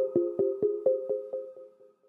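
Outro music: a steady beat of about four pulses a second over a held chord, fading out near the end.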